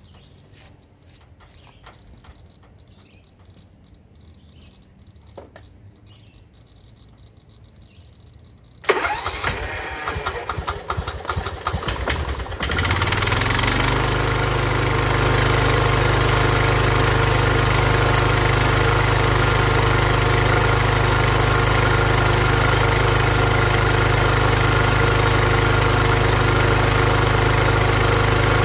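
After several quiet seconds with a few faint clicks, the Ariens Zoom 1840 zero-turn mower's 18 hp Kohler engine is cranked by its starter on a half-dead battery for about four seconds. It then catches and runs steadily.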